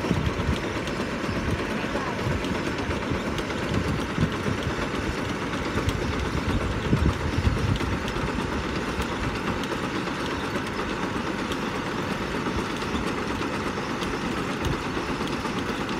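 Engine of a truck-mounted water-well drilling rig running steadily, with a rattle of knocks from the rig's machinery.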